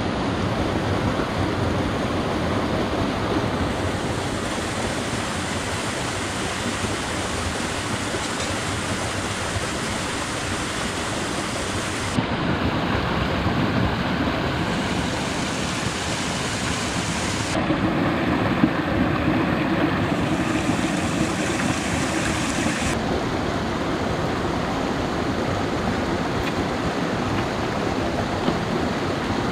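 Small stream rushing and splashing over rocks in a steady wash of water noise, its character changing abruptly a few times.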